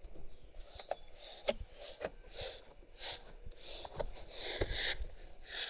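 Rubber door seal being pressed and rubbed into place along the door opening by hand: a string of short rustling hisses, about one every half second, with a few light clicks.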